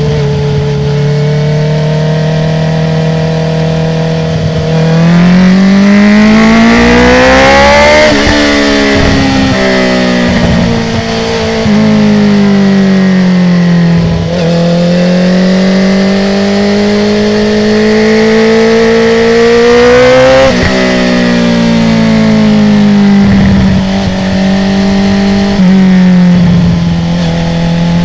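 2019 Honda CB650R's inline-four through an Akrapovic full titanium exhaust with no dB killer, heard from onboard. It holds steady, then accelerates hard twice, and after each pull the revs fall away on the overrun with crackling pops and bangs from the exhaust.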